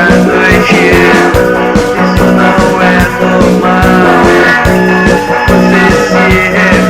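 Instrumental passage of a post-punk song, with a steady drum beat under sustained pitched instruments.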